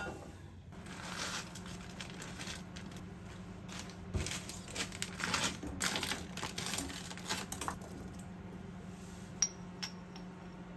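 Paper bags crinkling and rustling as they are handled and folded, in many short strokes, followed by a few sharp light clicks near the end.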